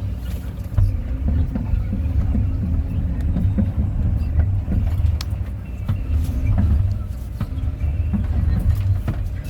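Kobelco 320 excavator's diesel engine running, its low note rising and falling unevenly, with a few sharp knocks.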